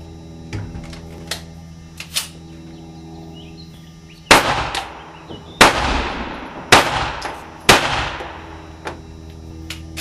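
Four 9mm pistol shots about a second apart, each followed by a long echo in the enclosed indoor range. A few much fainter sharp clicks come before and after them, over a steady low hum.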